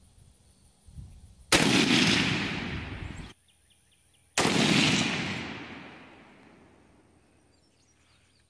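Two shots from an M1 Garand rifle in .30-06, about three seconds apart, each followed by a long rolling echo that fades away. The first echo cuts off suddenly.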